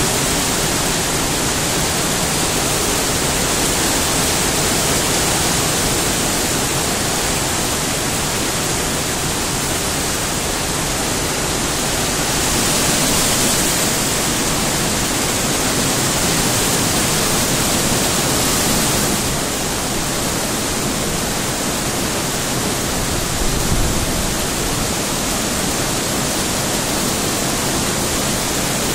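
Heavy rain falling steadily in a thunderstorm, a continuous hiss that swells a little now and then. A brief low thump comes late on.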